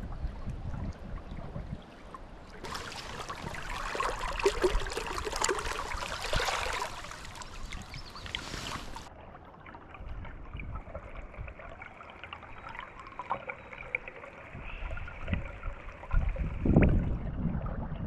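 River water running and trickling over a stream bed, splashing loudest in the middle stretch, with wind rumbling on the microphone at the start and again near the end.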